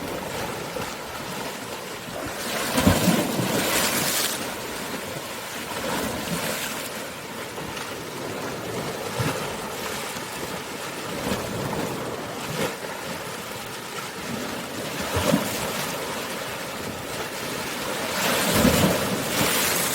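Sea waves breaking and washing over a pebble beach, a constant rush with louder surges about three seconds in, again later, and near the end.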